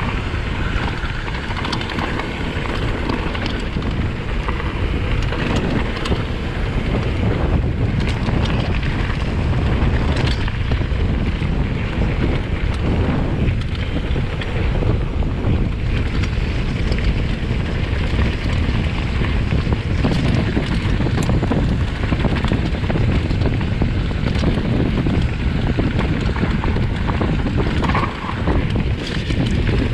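Wind buffeting a GoPro microphone on a mountain bike riding downhill, over the steady rumble of tyres on the trail. Short knocks and rattles come through now and then.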